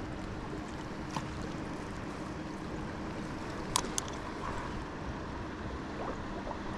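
Steady rush of wind and moving water, with a few light clicks about a second in and twice near four seconds.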